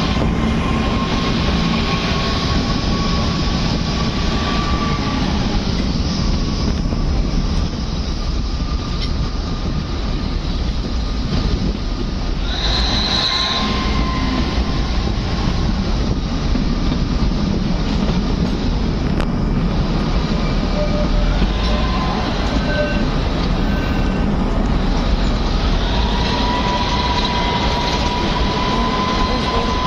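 Kalka–Shimla narrow-gauge train running, a steady rumble of wheels and coach with wheels squealing on curves. The squeal comes as thin wavering tones, with one brief, sharper high squeal about halfway through.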